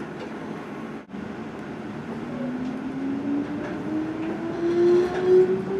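Inside a Kintetsu limited express carriage as the train pulls away: the electric traction motors whine, rising steadily in pitch as the train gathers speed, over the rumble of the running gear. The sound drops out briefly about a second in.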